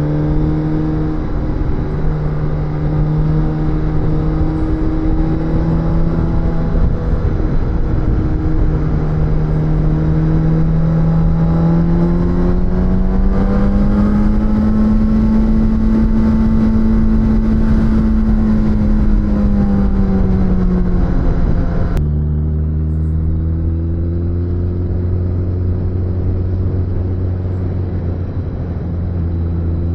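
Suzuki GSX-S1000's inline-four engine running while riding. The revs hold, climb steadily to a peak about halfway through, then ease back. About two-thirds through the sound changes abruptly to a lower, steady engine note.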